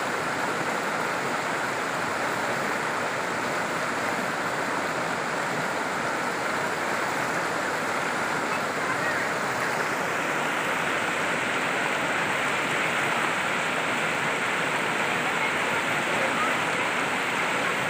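Fast, muddy river rushing over rocks: a steady, even rush of water that brightens slightly about halfway through.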